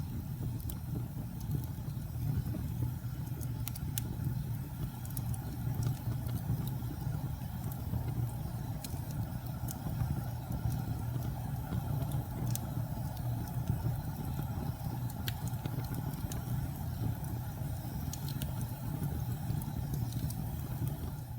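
Log fire burning in a fireplace: a steady low rumble of flame with scattered sharp crackles and pops from the burning wood.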